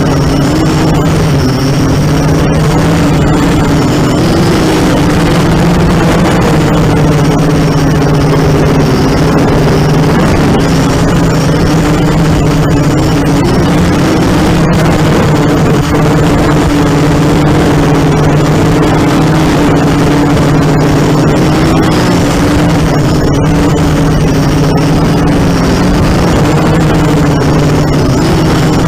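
ZMR 250 racing quadcopter's brushless motors and propellers buzzing loudly and steadily, the pitch wavering slightly as the throttle shifts.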